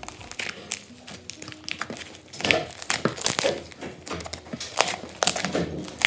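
Red fluffy slime being kneaded and squeezed by hand as a piece of air-dry clay is worked into it. It makes an irregular run of sticky crackles, pops and squishing clicks.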